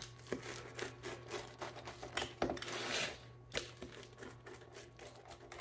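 A USS Enterprise–shaped rolling pizza cutter being run through a baked pizza, making scratchy slicing strokes with small clicks. The longest stroke comes about three seconds in.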